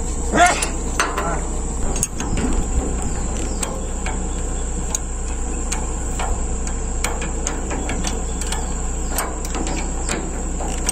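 Hand-lever grease gun being pumped to grease an excavator's arm cylinder pin: a run of short, irregular metallic clicks from the lever and coupler, over a steady high-pitched insect drone.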